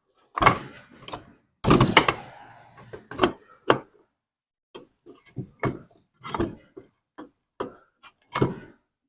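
Irregular clunks and rattles of an old kerosene heater's wick assembly being handled as the worn wick is pulled out.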